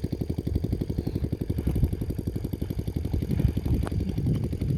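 A small engine running steadily with a rapid, even thumping, about a dozen beats a second, and a single sharp click a little before the end.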